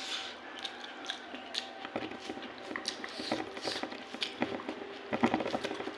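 A person chewing a mouthful of rice and curry close to the microphone: irregular wet mouth clicks and squishes, busier about five seconds in.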